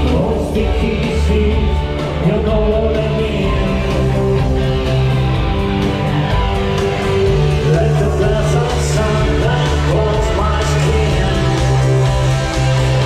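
Rock music played at a steady volume, with a sustained bass line and held chords throughout.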